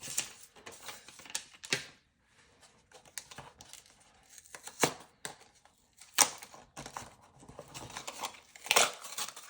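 Blind-box packaging being torn open and crinkled by hand, in scattered short rips and crackles with a brief quiet stretch about two seconds in.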